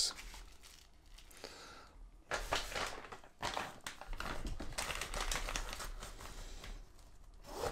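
Clear plastic packaging bag crinkling and rustling as it is handled, with small handling clicks. It starts about two seconds in and runs for several seconds.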